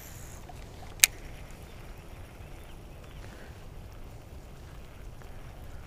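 A single sharp click from a baitcasting reel about a second in, as the reel is engaged after a cast, over a steady low rumble of wind on the microphone.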